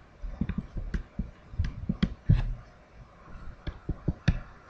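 Stylus on a tablet screen while handwriting: irregular light taps and short scratches as words are written.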